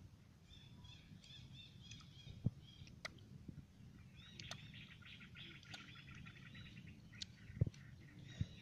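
Small birds chirping in quick runs of high notes in the background, with two short low thumps, the louder one near the end.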